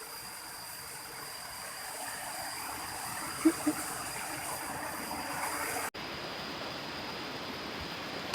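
Steady rush of flowing water, with two short faint sounds about three and a half seconds in and a brief dropout near six seconds.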